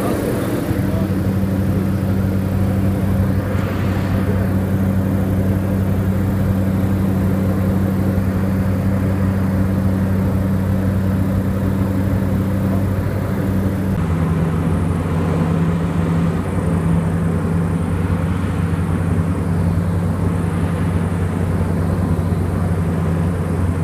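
Diamond DA40 light aircraft's piston engine and propeller droning steadily, heard inside the cockpit in flight. About fourteen seconds in, the note steps slightly lower.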